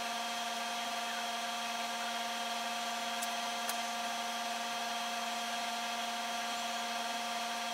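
A steady machine-like hum with a high whine, holding several fixed pitches at constant loudness throughout.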